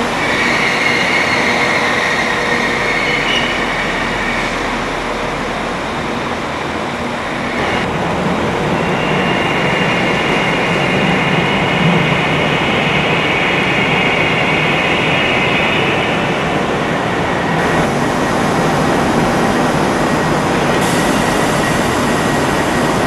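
Passenger multiple-unit trains moving slowly through the station platforms, in several short shots, with long, steady, high-pitched squeals: one in the first few seconds and another from about nine to sixteen seconds in.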